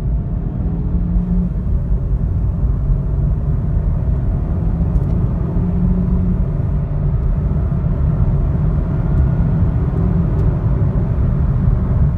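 Chevrolet Cruze's 1.4-litre turbocharged four-cylinder engine under hard acceleration, heard from inside the cabin: the engine note rises in pitch through the gears over loud road and wind rumble.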